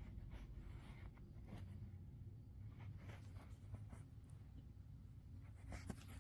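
Faint scratchy rustling and small clicks, like light handling of a small object, over a low steady hum.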